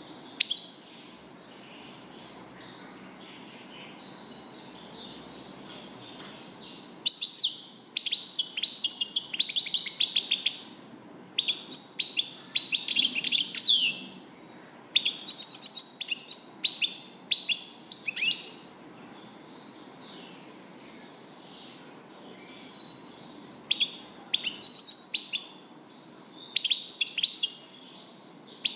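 European goldfinch singing: fast, high twittering song in bursts of phrases, with a pause of a few seconds past the middle.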